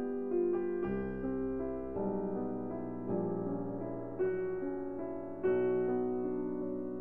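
Background keyboard music: slow, gentle chords and melody notes, a new one struck about once a second.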